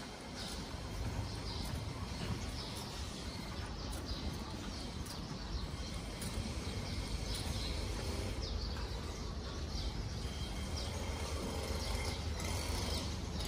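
Morning street ambience: small birds chirping in short, frequent calls over a low steady rumble.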